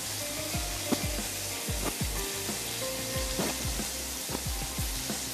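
Steady sizzle of food frying in a pan, with scattered knocks and scrapes of a spoon against cookware as potato-onion curry is tipped and scraped from a pan into a ceramic serving bowl. Faint background music underneath.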